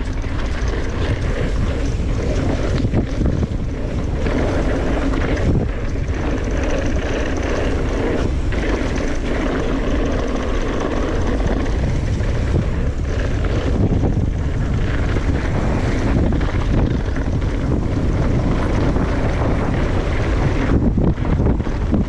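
Heavy wind noise on the camera microphone over the rumble of mountain bike tyres rolling fast on a loose gravel fire road, with the bike rattling on the bumps.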